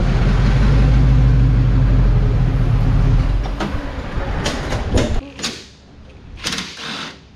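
A vehicle engine running with a deep, steady rumble, fading out after about three seconds and gone by about five. It is followed by a few sharp metallic clanks.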